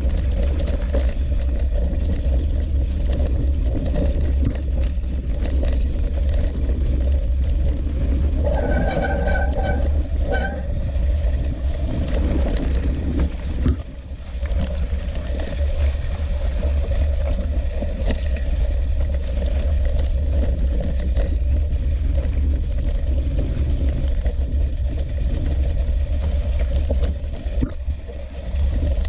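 Steady riding noise of a bike on a wet, muddy dirt track: a constant low rumble of wind buffeting the camera microphone under a noisy wash of tyres and mud. A short high-pitched tone sounds twice, about nine and ten seconds in.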